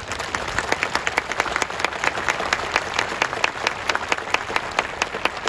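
A crowd applauding: many hands clapping steadily at once, with a few sharp single claps standing out.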